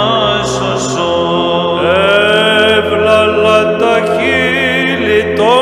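A man's solo Byzantine chant: a long melismatic passage held on one vowel, the voice sliding smoothly from note to note with no words.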